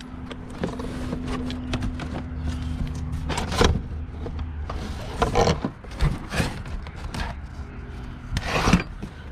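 Scrap items being handled and shifted: several short scraping, rubbing noises. A steady low hum runs under the first three seconds.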